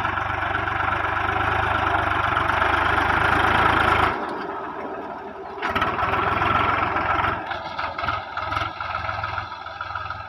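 Swaraj 735 FE tractor's three-cylinder diesel engine running while it pulls a cultivator through soil. The engine sound drops off suddenly about four seconds in, comes back about a second and a half later, then turns uneven and weaker near the end.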